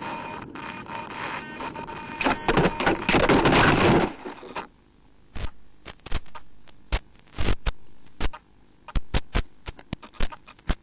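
Model plane's electric motor running with a steady whine, then about two seconds in a loud rough rush of noise lasting about two seconds as the plane comes down into tall grass. After it stops, scattered single sharp clicks.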